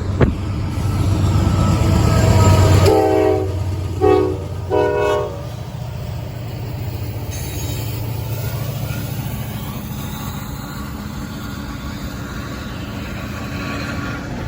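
Norfolk Southern locomotive air horn sounding one long blast and two short ones about three seconds in, over the steady low rumble of a train rolling past.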